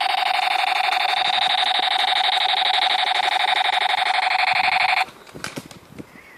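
A loud, steady electronic buzzing tone with a fast flutter in it, cutting off suddenly about five seconds in.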